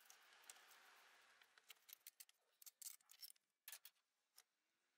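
Near silence, with faint scattered clicks and light knocks from hands working the power steering pump and its reservoir loose in the engine bay.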